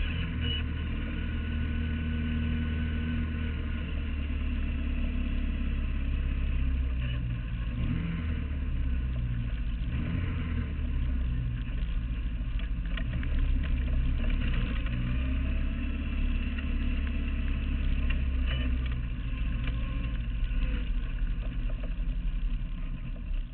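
Clubman sports car engine running at low revs while the car moves slowly, the note rising and falling a little with the throttle, then cutting off suddenly near the end as the engine is switched off.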